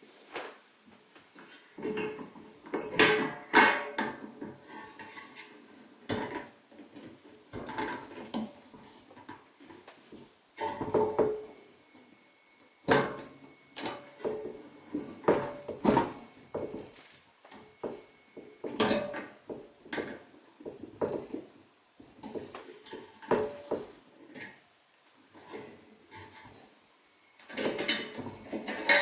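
Sheet-metal hurricane lantern being handled: irregular metallic clinks, knocks and rattles of its parts, in scattered clusters with short quiet gaps.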